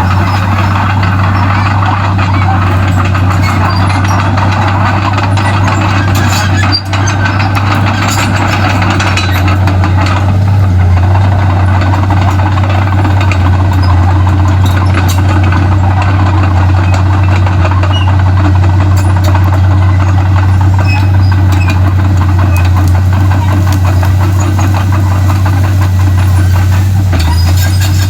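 Komatsu D31P bulldozer's diesel engine running steadily under load, a loud, constant low drone with mechanical clatter on top.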